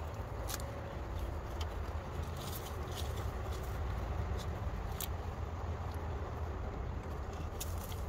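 Hands digging and scratching through loose potting soil, a dry rustling with a few sharp clicks, over a steady low rumble.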